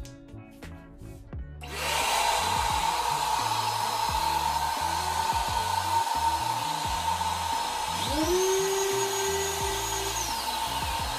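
Ridgid shop vac and the electric random orbital sander hosed to it running together, a loud steady noise with a whine that switches on suddenly about two seconds in. About eight seconds in a second whine rises in pitch and holds, then fades near the end.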